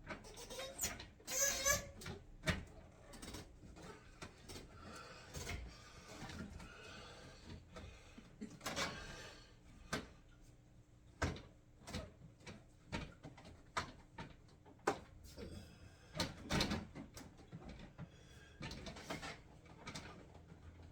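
Irregular knocks, clicks and scrapes of parts being handled and fitted together.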